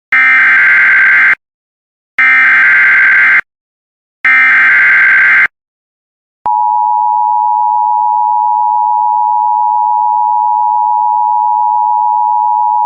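Emergency Alert System SAME header: three loud bursts of warbling data tones, each about a second long, then after a short pause the steady two-tone EAS attention signal, starting about six and a half seconds in. Together they mark the start of a new emergency alert.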